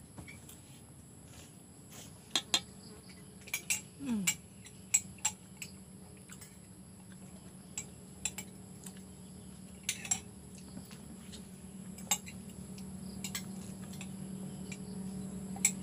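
Eating at a table: scattered sharp clicks and clinks of a fork and shells against a bowl and plate, with chewing in between.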